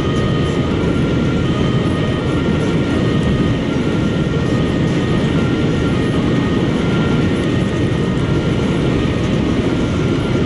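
Steady road, tyre and engine noise heard from inside a car's cabin driving at autobahn speed.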